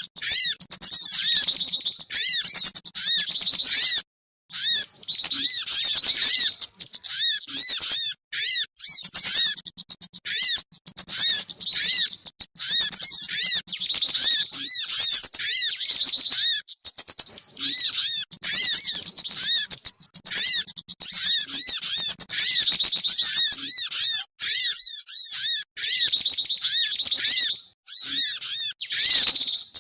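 Bird-lure recording of small songbirds (jingjing batu, sogon and kemade calls) chirping without a break: a dense, fast run of high, thin, arching chirps, several a second. There are short pauses about four and eight and a half seconds in.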